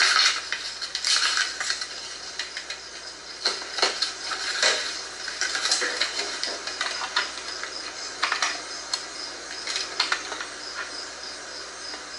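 Pages of an old Bible being turned and handled: irregular papery rustles and flicks, with a few sharper snaps of paper.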